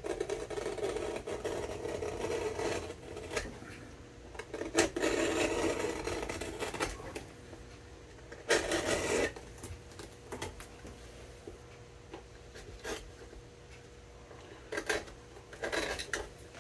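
Hand knife drawn through a leather sole, cutting a shallow splice, in several strokes of a few seconds each with small clicks between. The longest strokes come in the first nine seconds, with two shorter ones near the end.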